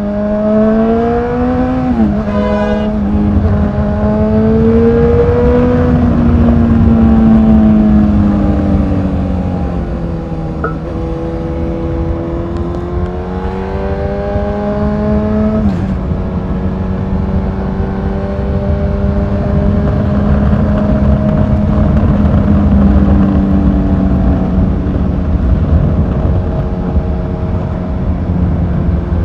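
Motorcycle engine running under way, its note rising and falling with speed. The pitch drops sharply twice, about two seconds in and a little past halfway, as it shifts up a gear.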